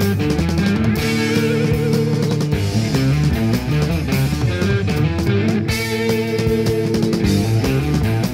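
Early-1970s progressive hard rock recording with electric guitar and bass, with held chords ringing out about a second in and again around six seconds in.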